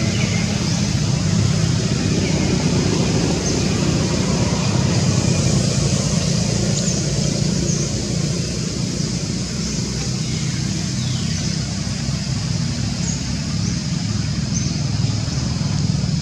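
Steady low rumbling background noise, with a few faint short high chirps now and then.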